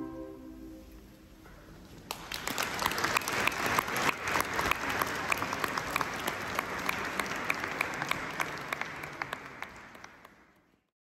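The last held chord of the music dies away, then audience applause breaks out about two seconds in, runs steadily for several seconds and fades out near the end.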